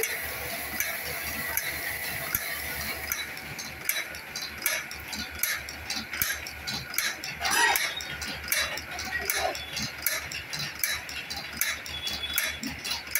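Automatic wire chain-making machine running, its forming mechanism clicking in an even rhythm of about three strokes a second over a low pulsing hum. A brief call-like sound with a rising pitch cuts in about halfway through.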